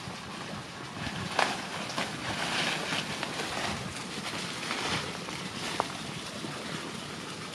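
Dry banana leaves and leaf litter rustling and crackling as they are pushed aside by hand, with a sharp snap about a second and a half in, over steady wind noise on the microphone.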